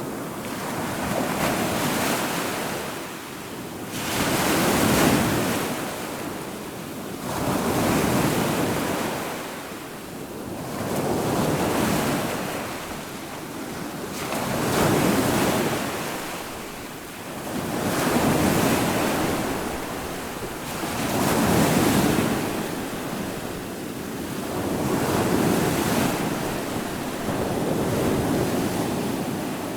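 Ocean surf: waves breaking and washing in, the rush swelling and fading again about every three to four seconds.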